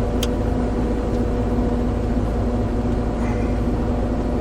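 Excavator engine running steadily with a constant hum, heard from the operator's seat. A single sharp click comes just after the start.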